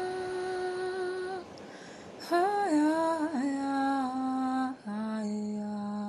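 A voice humming a slow, wordless melody in long held notes that glide from one pitch to the next, with short breaks for breath.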